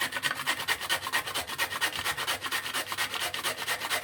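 Raw turnip being scraped by hand in rapid, even rasping strokes, about eight a second.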